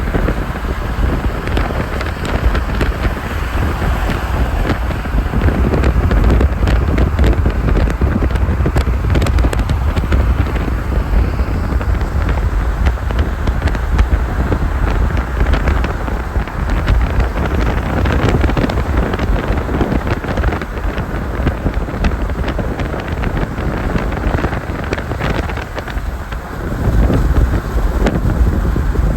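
Steady road noise of a car driving on a highway, tyre rumble and wind, with wind blowing on the microphone.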